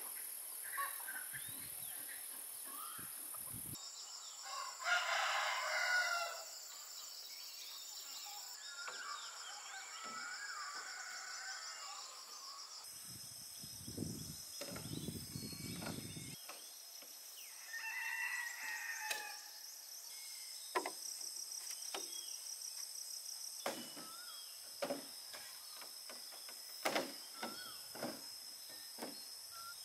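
A rooster crowing twice, about five seconds in and again around eighteen seconds, over a steady high-pitched background whine, with scattered light knocks of bamboo poles being handled.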